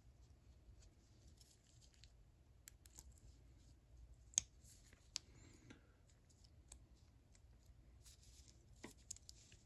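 Faint, scattered clicks and light taps of small steel ratchet parts (the reversing switch and its spring-loaded plungers) being handled, with two sharper clicks about four and a half and five seconds in.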